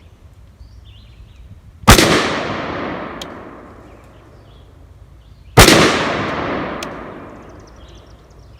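Two shots from a short-barrelled PSA AR-15 pistol in .223/5.56, about four seconds apart, each followed by a long echo that dies away over about two seconds.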